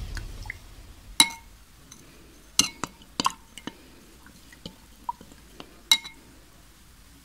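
A metal spoon clinking against the inside of a glass tumbler as a drink is stirred: about a dozen irregular, ringing clinks, the loudest about a second in and near the end.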